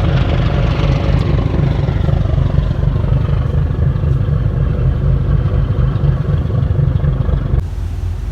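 Motorcycle engine of a passenger tricycle running steadily while under way, with road and wind noise. The level drops abruptly near the end.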